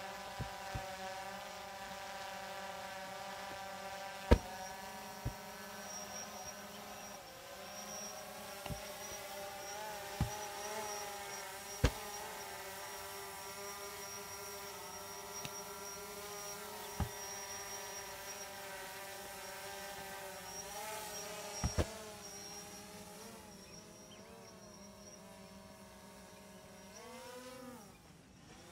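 A steady buzzing hum from a small motor, its several stacked tones drifting slowly in pitch and fading away near the end. Sharp knocks come every few seconds, the loudest about four seconds in.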